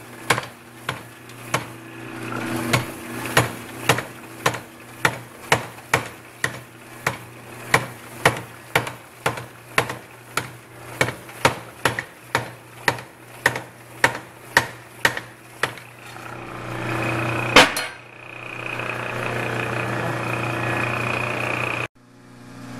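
Power hammer striking a hand-held top tool on red-hot truck leaf-spring steel, thinning the edge of a bark spud, in steady blows about one and a half a second. After about sixteen seconds the blows stop and the hammer runs on steadily, with one last hard blow.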